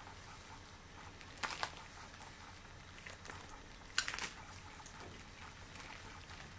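Latex gloves being handled and rubbed, a soft rustle broken by two short, sharp crackles of the rubber, one about a second and a half in and a louder one at about four seconds.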